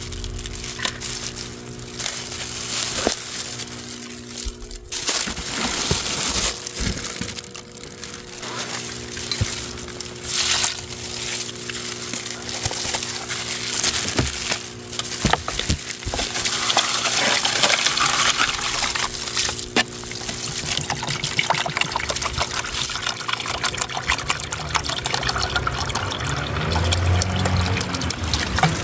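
Crinkling of disposable plastic gloves and plastic bags as plastic food tubs are handled, then water poured from a plastic bottle into a plastic tub, splashing steadily through much of the second half.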